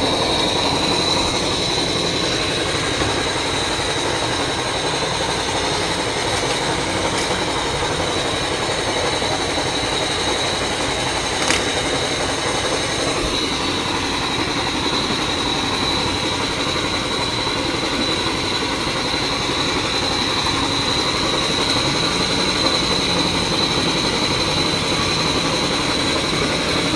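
Steady mechanical running from the fish-transport truck's equipment, with a constant high-pitched whine and one sharp click about halfway through.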